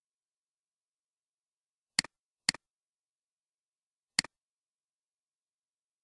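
Computer mouse clicks: two sharp clicks about half a second apart, then a third about two seconds later, each a quick press and release, with dead silence between.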